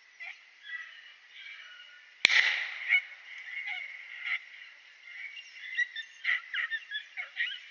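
A single gunshot about two seconds in, sharp and loud with a short echo, fired at a rabbit the beagles have jumped. Around it, a pack of beagles bays at a distance in short, repeated high calls.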